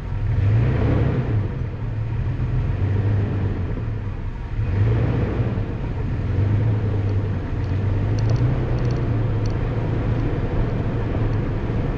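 Toyota FJ Cruiser's V6 engine running at low speed while the truck crawls over rocky trail, a steady low rumble. Two swells of rushing noise rise over it, about half a second in and again about five seconds in.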